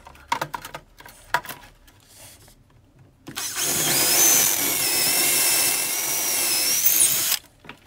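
Makita cordless drill boring a fixing hole into the wall: one continuous run of about four seconds, starting about three seconds in, with a steady motor whine, then stopping abruptly. Before it come a few light knocks and clicks.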